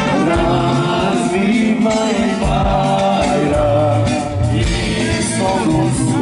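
Macedonian song: singing over instrumental accompaniment with a steady beat, at a steady loud level.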